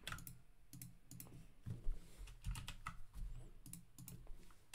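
Faint computer keyboard keystrokes: scattered, irregular taps while code is copied and pasted in a text editor.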